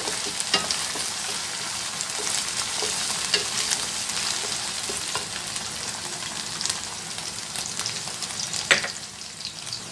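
Chopped onions and green chilli paste sizzling in oil in a steel kadhai while a wooden spatula stirs them, scraping and tapping against the pan now and then; one sharper knock near the end.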